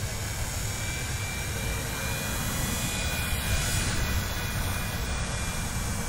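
WLtoys V911 four-channel fixed-pitch RC helicopter in flight, its small electric motors and spinning rotor giving a steady high whine, with wind rumbling on the microphone.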